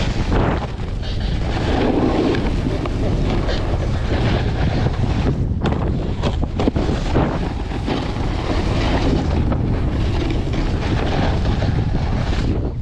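Wind buffeting the microphone of a body-worn action camera as a snowboard rides at speed, its edges scraping over packed snow. A few sharp knocks about six seconds in as the board meets a metal rail.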